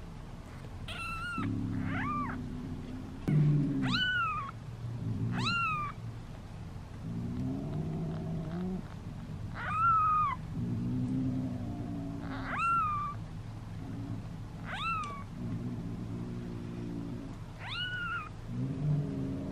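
Newborn kitten mewing over and over, about eight short, high cries that each rise and then fall in pitch. The cries come while its bottom is wiped with a cotton pad to stimulate toileting.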